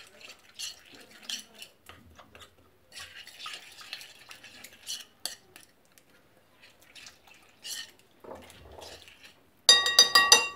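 Chopped herbs and spices being mixed by hand in a glass bowl, with soft, scattered squishing and scraping. Near the end a metal spoon clatters against the glass bowl with a short, bright ring.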